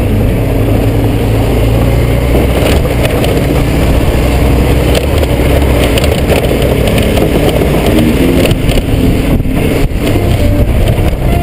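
Honda GoldWing GL1500 flat-six engine running steadily as the motorcycle rides a gravel track, with wind buffeting a helmet-mounted microphone and scattered clicks from the loose surface.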